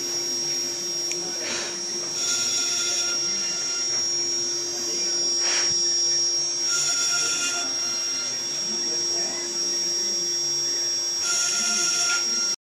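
High-speed CNC milling machine running, a steady high whine over a lower hum. A louder rushing passage swells about every four and a half seconds, near 2, 7 and 11 seconds in.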